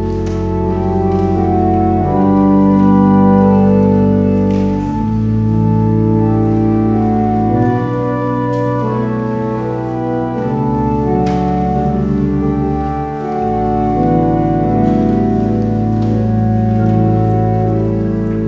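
Church organ playing slow, sustained chords over a deep pedal bass, the harmony shifting every few seconds.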